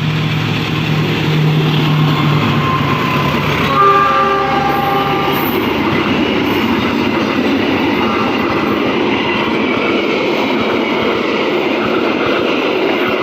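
Train passing at speed: its horn sounds once about four seconds in for a second and a half, over the steady rumble and rattle of the passing cars.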